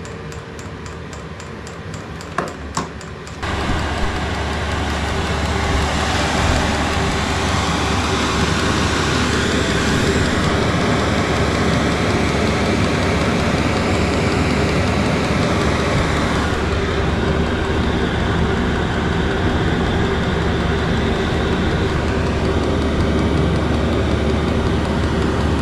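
Chinese-style diesel air heater running: faint, evenly spaced ticking at first, then after about three and a half seconds a much louder steady rumbling noise with a low hum as the microphone nears the heater's exhaust pipe.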